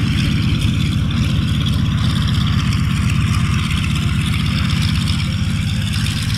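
Beech 18 twin-engine airplane taxiing past, its engines running at low power with a loud, steady, pulsing beat.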